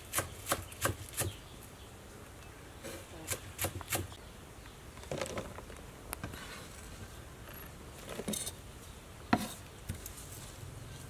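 Kitchen knife chopping green onions on a wooden cutting board: a quick run of chops, about three a second, at the start, a few more a little later, then scattered knocks, the sharpest about nine seconds in.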